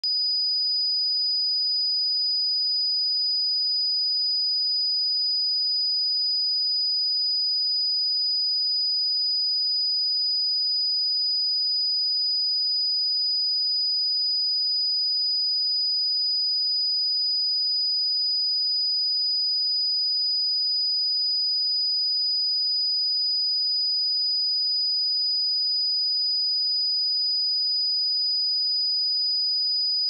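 A single pure sine-wave test tone at 4961 Hz, a steady high-pitched whistle held at one pitch and one level throughout, used to check speakers or headphones.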